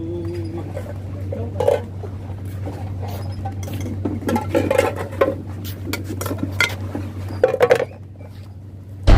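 Irregular light knocks and clinks of hard objects being handled, over a steady low hum that cuts out near the end.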